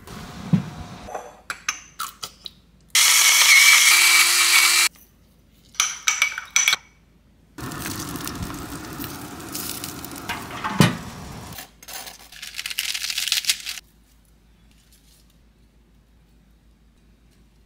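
Burger patties and onion sizzling on a grill in several short stretches that cut off sharply, with clicks and clinks of utensils and a sharp thump about eleven seconds in. The last few seconds are quiet.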